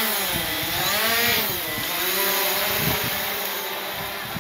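Quadcopter drone in flight, its propellers buzzing with a whine that rises and falls in pitch as the motors speed up and slow down.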